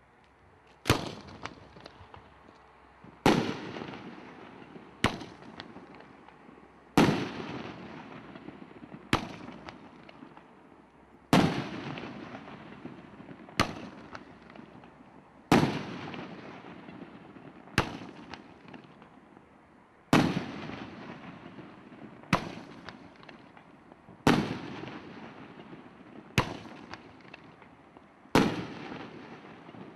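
Roman candle firing shot after shot, a sharp bang roughly every two seconds, each dying away over a second or so.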